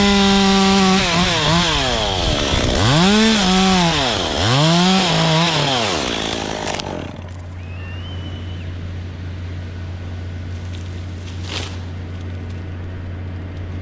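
Stihl chainsaw running at full throttle, its pitch sagging twice as the chain bogs under load in the cut and then revving back up. About seven seconds in it drops back to a low steady idle.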